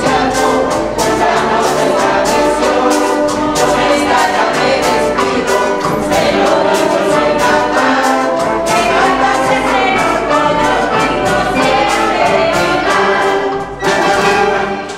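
A group of voices singing coplas together, accompanied by a school brass band with trumpets and trombones. The song ends near the end, and applause starts.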